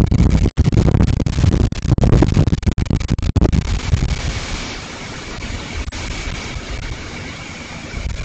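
Hurricane wind gusting hard against a trail camera's microphone, a low rumbling roar with brief dropouts. The gusts are strongest in the first few seconds, ease off in the middle, and build again near the end.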